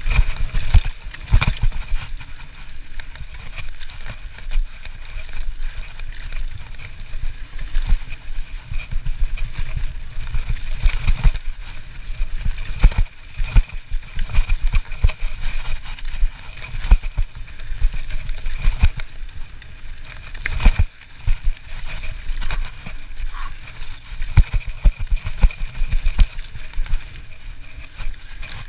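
Trek Slash full-suspension mountain bike descending a dirt forest trail at speed: tyres rumbling continuously over the ground, with frequent sharp knocks and rattles as the bike hits bumps and roots.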